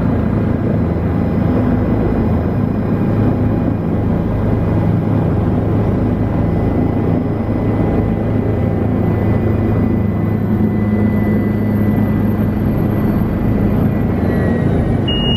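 Helicopter's engine and rotors heard from inside the cabin: a steady, loud drone with an even low hum as the helicopter comes down onto the landing pad.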